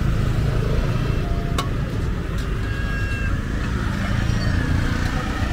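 City road traffic: a steady rumble of passing vehicles, with one sharp click about one and a half seconds in.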